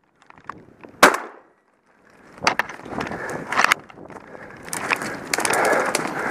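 Footsteps crunching through snow, with twigs and branches scraping and snapping against clothing. A single sharp crack comes about a second in, and the crunching grows steadier and busier in the second half.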